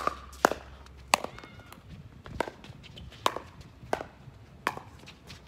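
A pickleball rally: paddles striking the hollow plastic ball back and forth, about seven sharp pocks at uneven intervals.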